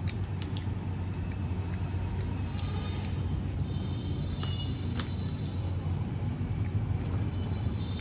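Eating with the fingers: rice being mixed and picked up from a plate, with soft clicks and chewing, over a steady low rumble.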